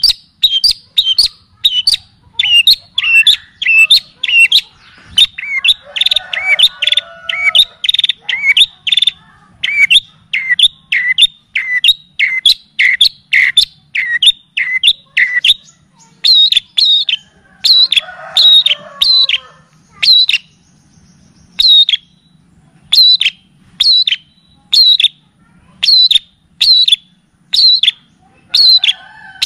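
Recorded songbird song played as a tutoring track for cendet: a fast string of sharp, downward-slurred whistled notes, about two a second, with softer warbling phrases mixed in twice and a brief pause after about twenty seconds.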